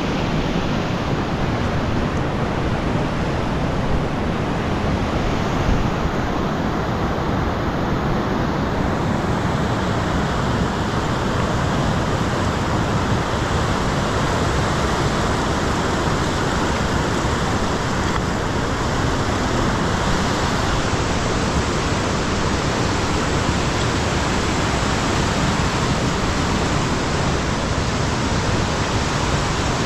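Fast-flowing mountain river rushing steadily, an even wash of water noise with no breaks.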